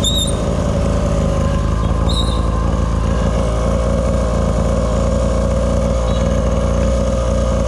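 Small ATV's engine running at a steady cruising speed, one even droning note with no revving, over a heavy low rumble of wind on the microphone.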